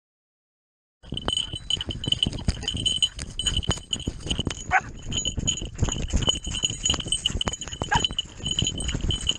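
A hunting dog running through undergrowth, heard from close by, starting about a second in: constant rustling, scraping and knocking of brush, with a bell jingling steadily.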